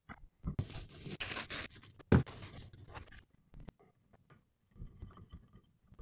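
Handling noise from fitting the metal counterweight shaft into a Celestron CGX mount: rustling and scraping, one sharp knock about two seconds in, then faint scratching as the shaft is worked into place.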